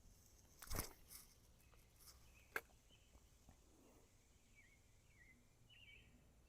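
Quiet outdoor creek-side ambience: a brief swish just under a second in, a single sharp click a couple of seconds later, and faint short bird chirps in the second half.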